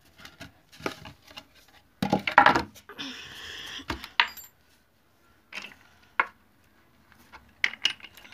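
Small metal pieces, such as nails, clinking and tapping against a board and a concrete floor as they are handled: a louder clatter about two seconds in, a short scraping rustle, then a few scattered sharp clicks.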